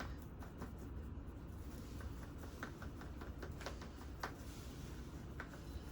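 Faint, scattered light taps and clicks of small objects being handled, over a low steady room hum.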